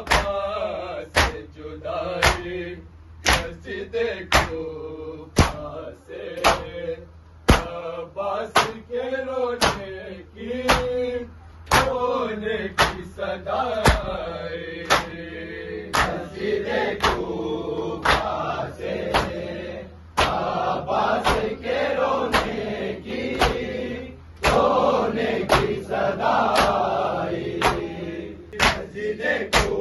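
Group of men chanting an Urdu nauha (mourning lament), kept in time by the crowd beating their chests in unison. The matam gives a sharp slap about once a second. The chanting grows fuller from about halfway.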